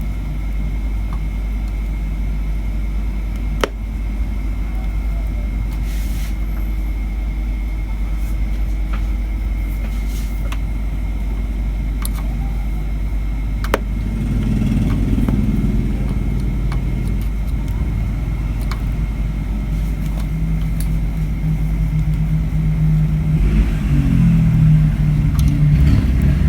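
Steady deep hum and rumble, swelling about halfway through and again near the end, with a few sharp clicks.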